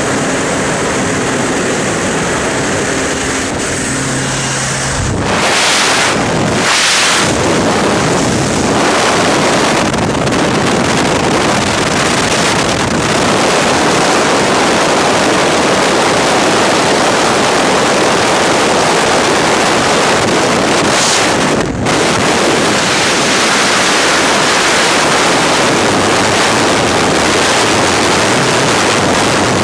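Propeller aircraft's engine droning in the cabin, then about five seconds in a loud, steady rush of wind on the helmet camera's microphone at the open door and in freefall.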